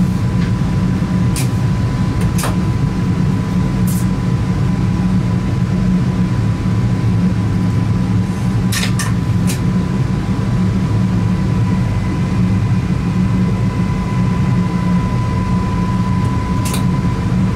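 Steady running noise inside the driver's cab of a Stadler FLIRT3 electric multiple unit: a low rumble with a thin, steady high whine through it and a few sharp clicks scattered across it.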